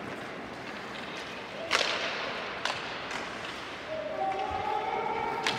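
Ice hockey play: skates scraping the ice under sharp cracks of sticks and puck, the loudest a little under two seconds in and a few smaller ones after. From about four seconds a voice on the ice calls out a long, held shout.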